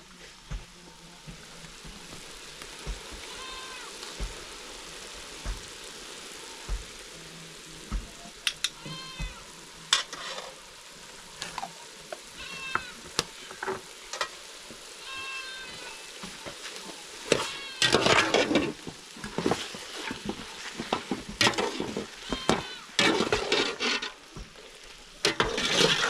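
Goat meat and offal frying in a pot with a steady sizzle, and being stirred. An animal gives several short high calls through the first half, and louder noisy clattering comes in over the last third.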